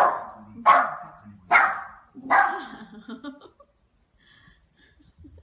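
Small dog barking four times in quick succession, about one bark every 0.8 seconds. The last bark is drawn out longer.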